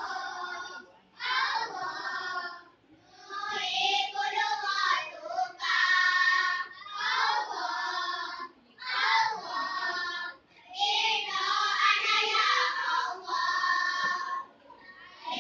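A group of young children singing together in unison, in phrases of a couple of seconds broken by short pauses.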